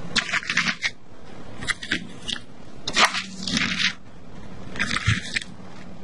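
Newspaper and fresh ivy leaves rustling and crinkling in several short bursts as they are handled on a table, the loudest about three seconds in.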